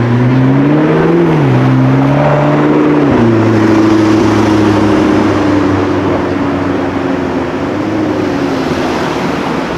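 Car engine running loud, its pitch climbing about a second in and then dropping in two steps, the second about three seconds in, before holding steady.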